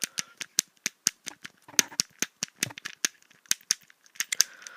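Fidget Cube flip switch toggled rapidly back and forth close to the microphone: a quick run of sharp plastic clicks, about five a second, with brief uneven pauses.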